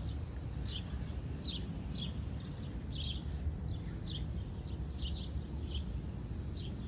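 Songbirds chirping: short, high chirps that slide downward, repeated every half second or so, over a steady low rumble.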